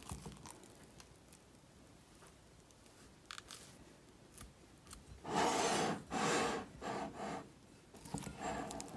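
Wet hands gripping and pulling sticky sourdough dough in a glass bowl: several short sticky rubbing and tearing noises starting about five seconds in, with another cluster near the end.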